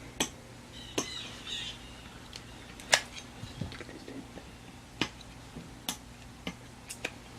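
Small sharp clicks and taps of a lighter-fluid bottle and a plastic fuel cup being handled, about eight scattered over several seconds, with a faint high squeak just after a second in, over a low steady hum.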